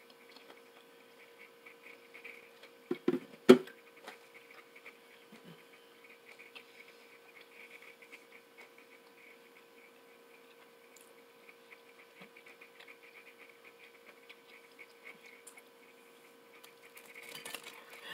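Faint close-up chewing and mouth sounds of someone eating a bite of cheese, over a steady electrical hum. Two or three sharp knocks about three seconds in are the loudest sounds, and there is handling noise near the end.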